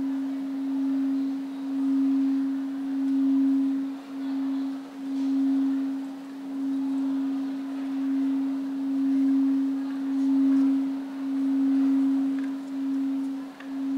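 Frosted quartz crystal singing bowls played with a mallet: a single sustained low tone that swells and dips about every second and a half.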